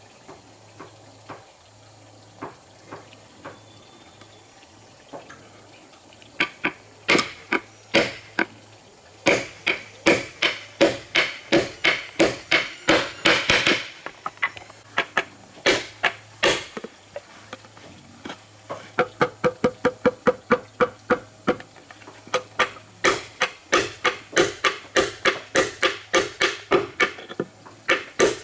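Small hammer driving nails into a wooden plank: a few light taps at first, then quick runs of blows about three a second, with a short break in the middle.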